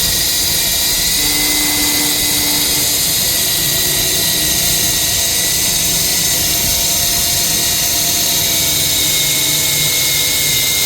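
Ring saw machine running steadily, its motor and blade giving a continuous high whine with several steady tones.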